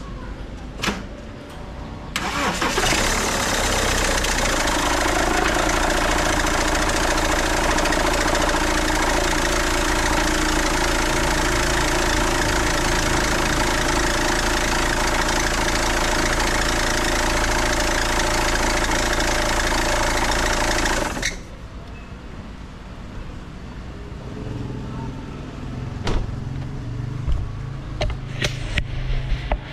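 2008 BMW 520d's four-cylinder diesel engine starting about two seconds in and running loud, with the serpentine drive belt squealing on a cold start even though the belt, tensioner, tensioner pulley and alternator bearings are new. The noise cuts off suddenly after about twenty seconds, and a few sharp knocks follow near the end.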